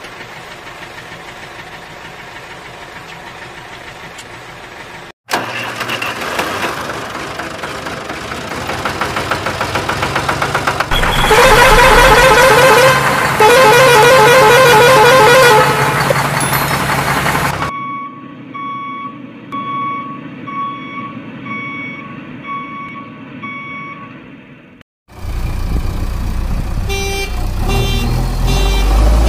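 A vehicle horn sounds loudly for about six seconds, with a warbling pitch, in the middle of a string of edited vehicle sound effects. Before it come a steady hum and a noise that slowly rises. After it come a run of evenly spaced beeps, then a brief silence and loud, low-pitched engine-like noise.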